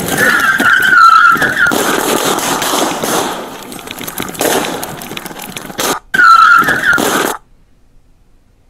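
Car tires squealing as the car brakes hard to a stop, with rushing movement noise as the body camera's wearer gets out of the back seat and moves off; the squeal is heard twice.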